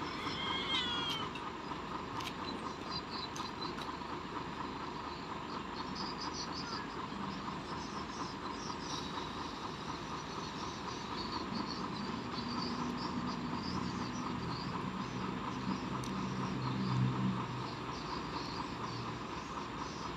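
Domestic cat meowing now and then, over a steady outdoor chirring background. A low motor hum builds in the second half, loudest a few seconds before the end, then fades.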